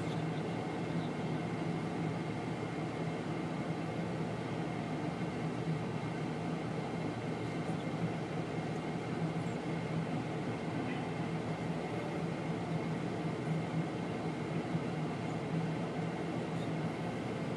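Steady din of a mobile rock crusher working through rock, with the diesel engines of heavy equipment (Cat 330C excavator, Cat 972H wheel loader, Cat D6R dozer) running alongside. A constant low hum runs under an even rumble, with no clear changes.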